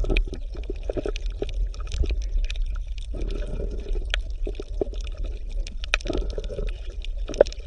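Underwater-style water ambience: a steady low rumble with bubbling, gurgling and many small scattered clicks.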